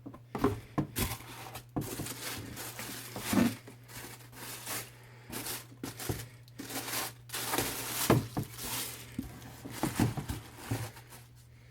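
Paper rustling and crinkling in irregular bursts, with light knocks and scrapes from handling a shoe box, as the shoes are taken out.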